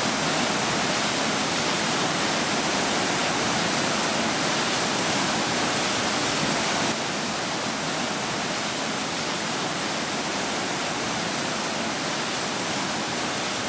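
Waterfall's steady rush of falling water, dropping slightly in level about seven seconds in.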